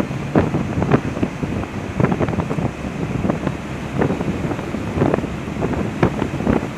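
Wind buffeting the microphone on a moving ship's open deck in irregular gusts, over a steady rush of sea water.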